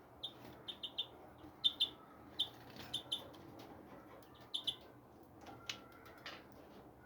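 Small birds chirping: short, high call notes at irregular intervals, several in quick pairs.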